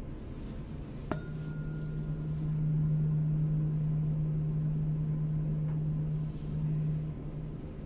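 A tuning fork is struck with a sharp click about a second in, then rings a steady low tone. A higher overtone dies away quickly. The low tone swells and holds for about five seconds before it drops away near the end.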